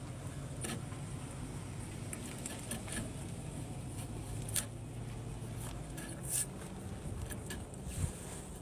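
A knife blade scraping and scoring the face paper along the edge of a drywall patch, heard as scattered short scratches over a steady low hum.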